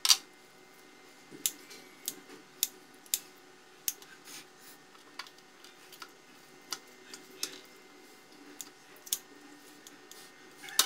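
Kitchen scissors snipping through a boiled chicken thigh: a series of short, sharp clicks as the blades close, coming irregularly about one every half second to a second.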